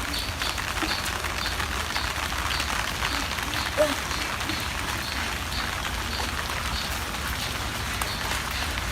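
Steady rain falling, an even hiss throughout. A faint high chirp repeats about twice a second behind it, and there is one short, louder call about four seconds in.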